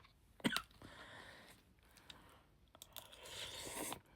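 Faint eating sounds: a person chewing a mouthful of pot noodles, with a short sharp mouth sound about half a second in and a longer soft breathy slurp near the end.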